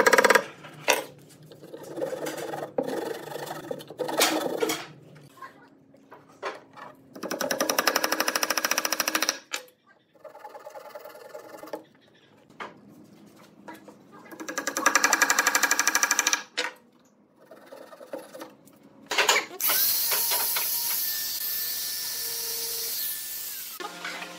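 Wooden mallet knocking glued dowels into a pine table base, then two bursts of about two seconds each of a fast-buzzing power tool, and a steady hiss over the last few seconds.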